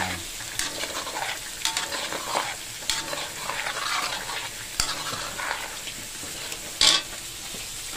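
Chicken gizzards sizzling as they fry in oil in a wok, freshly added and still raw. A few short clicks and one sharp, louder knock come through about seven seconds in.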